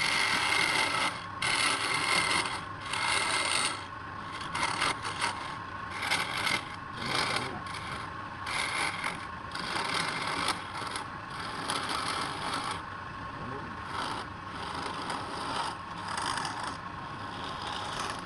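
Wood lathe running while a turning tool scrapes the spinning wood in repeated passes of about a second each, over a steady whine from the lathe.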